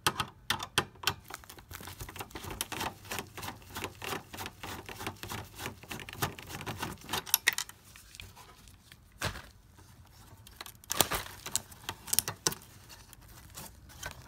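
A quick run of small clicks and taps, hard plastic and metal parts being handled and knocked together, that thins out about halfway through into a few separate louder knocks.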